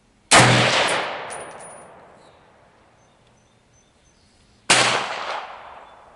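Two rifle shots from an M14-pattern rifle firing 7.62x51mm NATO ball, about four seconds apart, each echoing and dying away over about a second and a half. A few brief metallic pings follow the first shot.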